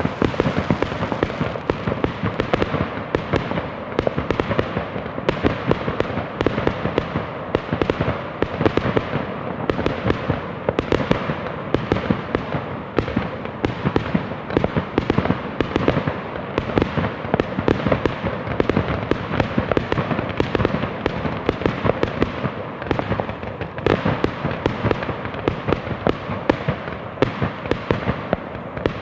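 Fireworks going off in a dense barrage: rapid, overlapping bangs and crackling pops with no break.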